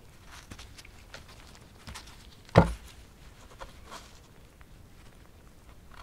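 Soft rustling and small clicks of gloved hands working the skin back on a red squirrel's tail, with one loud thump about two and a half seconds in.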